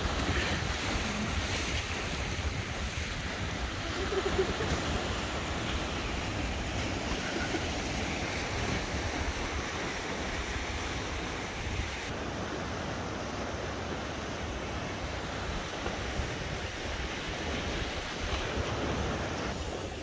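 Ocean surf washing steadily against a rocky shore, with wind buffeting the microphone as a low rumble.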